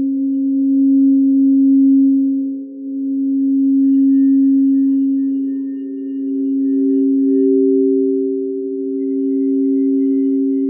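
Singing bowls ringing with several steady, sustained tones layered together, swelling and easing in loudness every few seconds.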